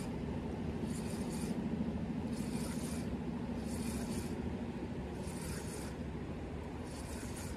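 Spinning reel being cranked to retrieve a lure: a short whirring swish comes with each turn of the handle, about once a second, over a steady low rumble.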